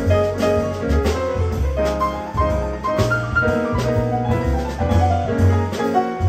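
Live jazz with no singing: a grand piano plays running melodic lines over plucked upright double bass notes that change about twice a second.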